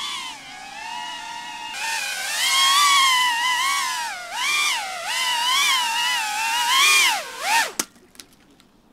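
Small FPV cinewhoop drone's brushless motors and props whining, the pitch rising and falling with the throttle. Near the end the whine sweeps sharply down and cuts off as the drone crashes and disarms.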